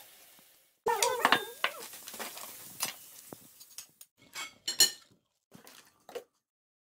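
Cutlery and plates clinking on a table: a string of sharp clinks and knocks, with a few short squeaky sounds about a second in. The sound stops abruptly a little past six seconds.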